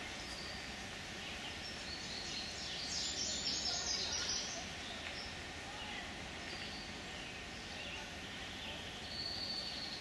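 Woodland outdoor ambience with faint, distant voices of a walking group. A short run of high bird-like chirps comes about three seconds in, and a single high note comes near the end.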